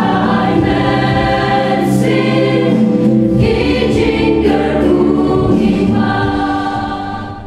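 A church choir of men and women singing together, fading out near the end.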